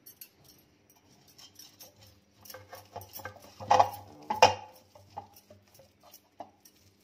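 Pastry brush spreading butter inside a metal tube pan: soft scraping and light tapping, with two louder knocks against the pan a little under four and about four and a half seconds in.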